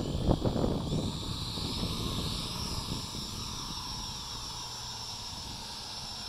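Hubsan H507A quadcopter's motors and propellers whining as it lifts off and climbs; the high buzz rises in pitch over the first couple of seconds, then settles into a steady drone. A few low rumbles on the microphone in the first second.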